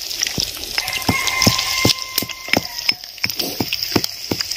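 Small fish frying in hot oil: a steady sizzle with sharp crackles and pops of spattering oil, several a second.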